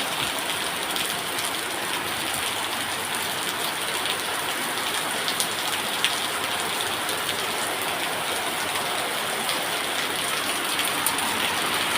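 Rainy-season rain falling steadily, with a few sharper drop hits standing out.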